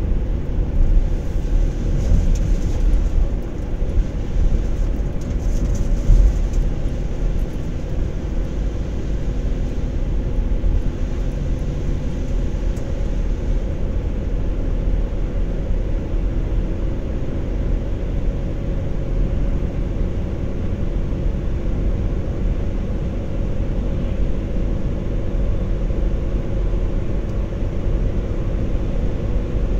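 Steady road noise inside a moving car's cabin: tyres rolling on the pavement and the engine running at cruising speed, with a few louder rushes in the first several seconds.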